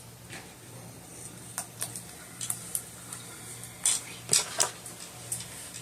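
Irregular small plastic clicks and taps from handling a clip-on LED phone light, as someone fiddles with it to try to get it to switch on, over a faint steady low hum.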